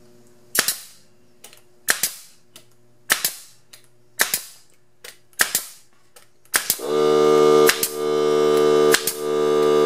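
Pneumatic nail gun firing into plywood, six sharp shots a little over a second apart. About seven seconds in, the Ryobi P739 18V cordless air compressor's motor starts and runs with a steady pitched drone to rebuild tank pressure, while the gun fires three more times over it.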